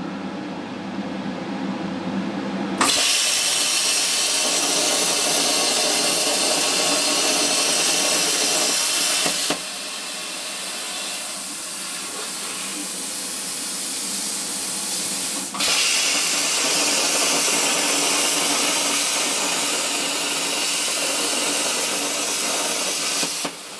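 Arcdroid robot-arm plasma torch cutting steel plate: a loud steady hiss starts suddenly about three seconds in. The hiss drops to a softer level for about six seconds while the torch lifts and moves from the cut hole to the square, then runs loud again for the second cut and stops abruptly just before the end. A low hum lies under the first seconds.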